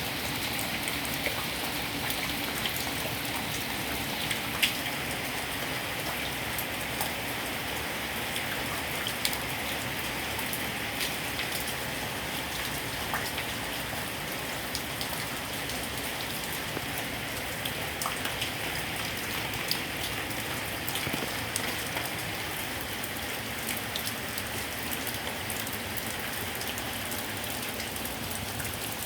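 Heavy rain pouring down: a steady hiss of rainfall, dotted with sharp taps of individual drops hitting nearby surfaces.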